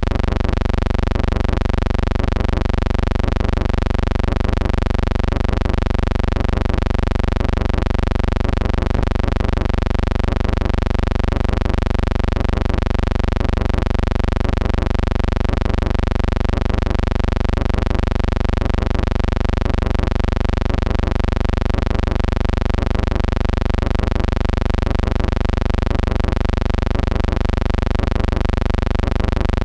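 Steady, unchanging buzzing hum with many evenly spaced overtones, typical of electrical hum picked up in a film-to-video transfer of silent footage rather than any sound of the aircraft shown.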